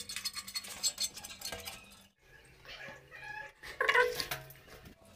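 Light scratching and small clinks of marking work on the floor tiles around the base of a ceramic toilet and of handling the toilet, with a short pitched squeak about four seconds in.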